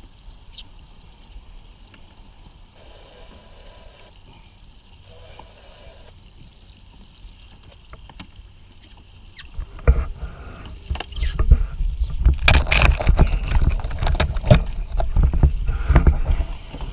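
Quiet background on the boat, then about ten seconds in a loud jumble of knocks and low rumbling close to the GoPro's microphone for some six seconds, the kind of handling and buffeting noise a GoPro picks up on a boat.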